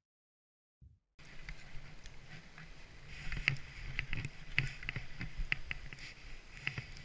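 About a second of silence, then skis sliding over snow, with short sharp scrapes and clicks coming irregularly, roughly every half second.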